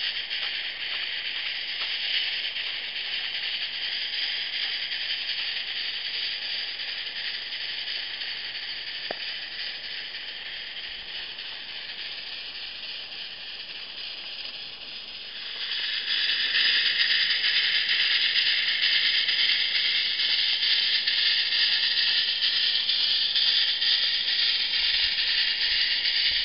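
Live-steam Accucraft Shay geared locomotive, fitted with a chuffer, working slowly under the load of a long train: a steady steam hiss from its exhaust. It gets markedly louder about 16 seconds in.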